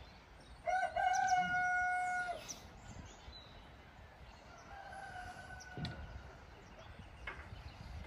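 A rooster crows once, one long call of about a second and a half, and a fainter crow follows a few seconds later.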